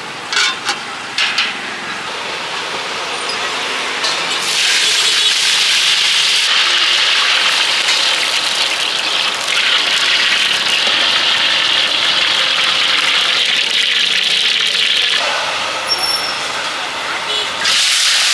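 Food sizzling hard in a wok, a steady loud hiss, with a few sharp knocks in the first second and a half and voices in the background.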